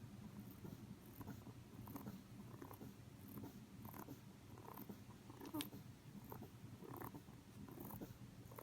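Sleeping pet rabbit snoring faintly: soft, short snuffling breaths, about three every two seconds. A single sharp click about halfway through.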